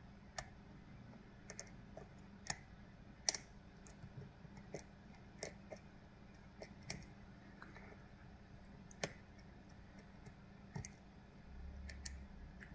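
Faint, irregular small metallic clicks of a lock pick working the pins inside a Kale Kilit 164 BNE lock cylinder, about a dozen, scattered unevenly.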